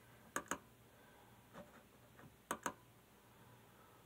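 Two quick double-clicks on a Samsung Chromebook's trackpad, about two seconds apart, over quiet room tone.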